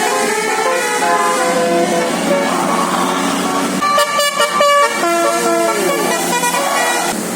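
Bus musical air horn (basuri telolet) playing a melody of held notes that step up and down in pitch, with a quick run of short notes about four seconds in and a falling slide soon after.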